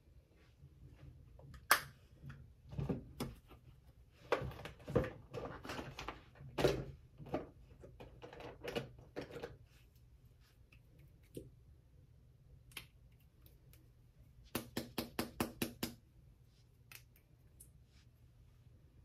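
Makeup cases and tools being handled and set down: scattered clicks and knocks, then a quick run of about eight clicks near the end.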